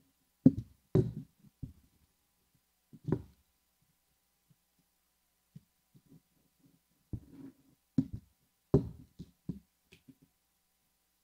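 Scattered knocks and thumps of a plastic folder sheet and hands working on a cutting mat on a wooden table, in two bunches with a quiet pause of a few seconds between them.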